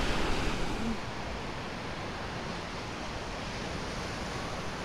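Surf washing onto the beach, a steady, even rush that eases a little after the first second.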